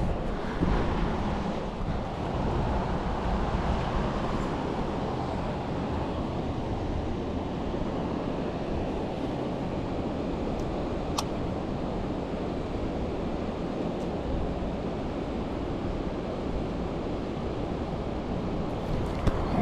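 Steady roar of the flooded Ohio River's water rushing at the dam, mixed with wind on the microphone. One sharp tick about halfway through.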